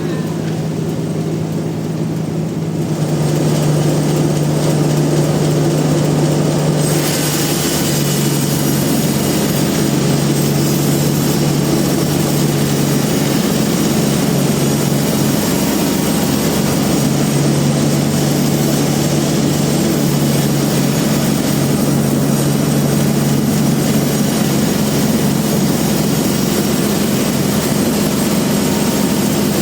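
Large bandsaw mill running and sawing through a rain tree log, a steady machine hum under the hiss of the blade. It grows louder about three seconds in and takes on a stronger high hiss about seven seconds in.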